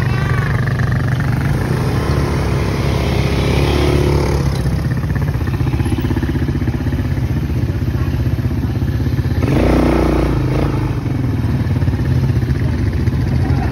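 ATV engines running along a dirt trail, heard from the rider's seat, the engine note rising about three seconds in and a louder surge about ten seconds in.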